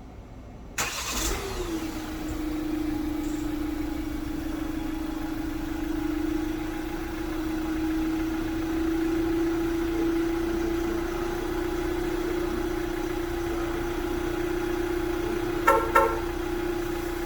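Renault Master van's diesel engine starting by remote start: it cranks and catches about a second in, then settles into a steady idle with a steady whine. Two short chirps sound near the end.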